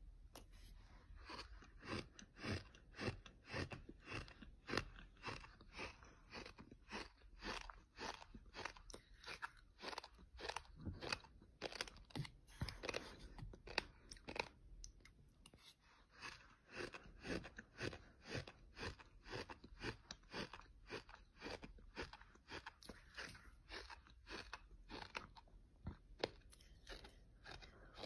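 Fine light-gold beach sand being chewed close to the microphone: gritty crunches, about two to three a second, with a short lull midway.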